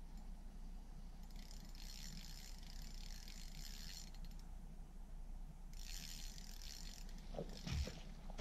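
Fishing reel working against a big trout on the line: fast clicking of the reel's gears or drag in two spells of a couple of seconds each. A few dull knocks near the end.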